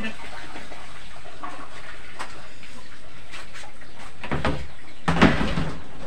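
Hollow knocks and clatter of a mug and lid against a large plastic water drum, with a couple of light taps early and heavier clatter about four to five seconds in, the loudest just past five seconds.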